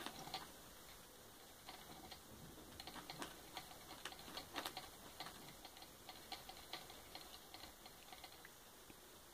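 Guinea pigs chewing cabbage leaves: faint, rapid, irregular crunching clicks that are busiest in the middle and thin out near the end.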